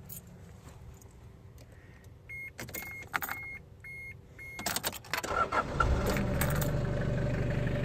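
Keys jangling in the ignition, then five short warning beeps, about two a second. Near the end the starter cranks briefly and the Toyota 3L 2.8-litre diesel catches and settles into a steady idle.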